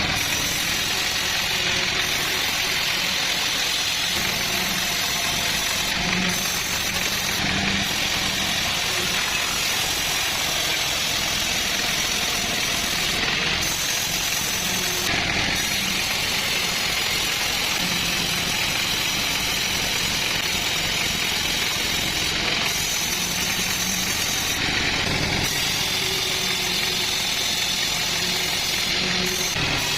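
Chainsaw-powered mill running steadily under load as it cuts through a log, with a dense high hiss from the cutting.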